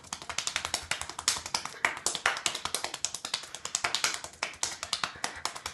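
Rapid hand clapping close to the microphone, a fast, even run of sharp claps at about eight to ten a second.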